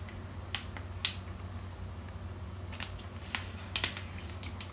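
A person chewing a jelly bean with mouth closed: a scattered handful of short, sharp wet mouth clicks at irregular intervals, over a steady low hum.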